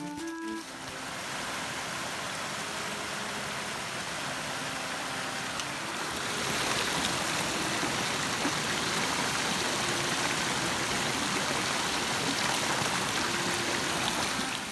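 Spring water gushing from a pipe spout and splashing over the rocks of a small stream, a steady rush that gets louder about six seconds in. Faint background music plays under it.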